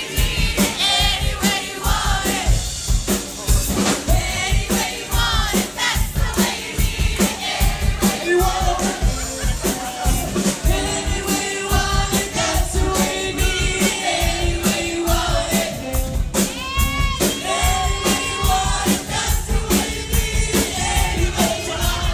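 A song with a lead vocal over a steady drum beat.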